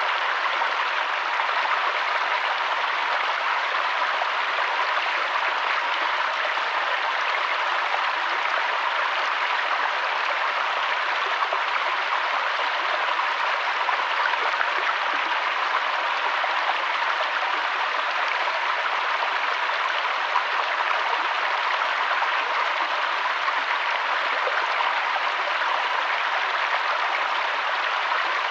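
Mountain waterfall and stream water rushing steadily, an even, unchanging hiss of falling and flowing water.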